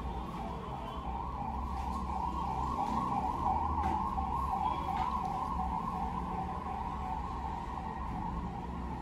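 A continuous warbling high tone that wavers up and down in pitch, over a steady low hum, with two faint ticks around the middle.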